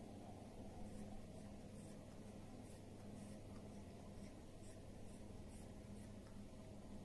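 Faint short scratching sounds, several in a row, over a steady low hum.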